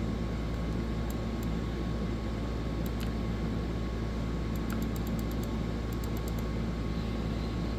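Steady low electrical hum and hiss of room tone, with a few faint clicks about three seconds in and a short cluster of them past the middle.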